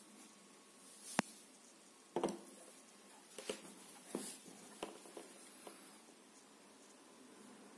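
A few light clicks and taps, scattered and irregular. The sharpest click comes about a second in, and a cluster of softer knocks follows over the next few seconds.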